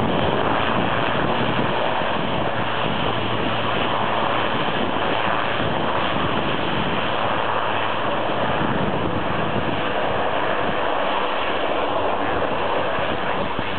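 Airbus A400M's four TP400 turboprop engines and eight-bladed propellers running steadily on the ground after landing, a continuous noisy rumble with a faint steady whine, mixed with wind on the microphone.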